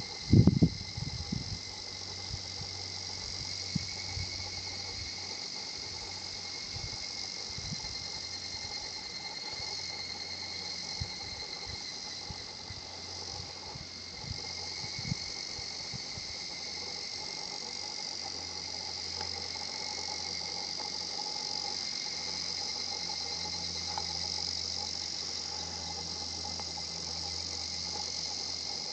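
Evening cicadas (higurashi, Tanna japonensis) singing in a steady, high-pitched chorus, their 'kana-kana-kana' calls overlapping. A few low thumps in the first second.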